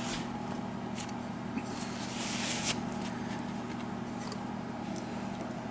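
Small metal tools being handled: scattered faint clicks and a short scraping rustle about two seconds in, over a steady low hum.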